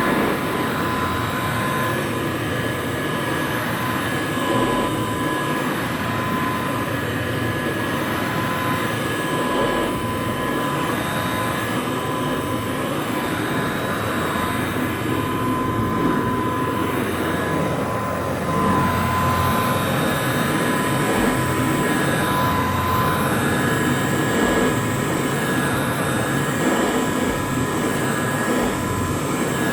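Rebuilt 1957 Kirby Model 517 upright vacuum cleaner running steadily: a rush of air with a steady whine over it.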